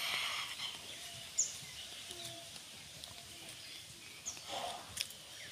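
Quiet rural outdoor ambience with a few short bird chirps. There are brief rustles of leafy bottle gourd vines being handled and cut at the start and about four and a half seconds in, and a sharp snap about five seconds in.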